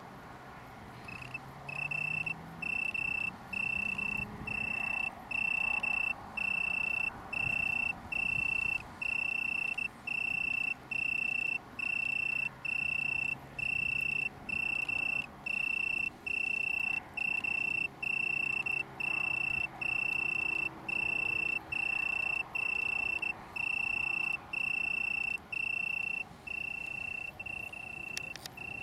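Italian tree cricket (Oecanthus pellucens) singing: a clear, pure-toned trill repeated in bursts of about a second with short gaps between them, starting about a second in.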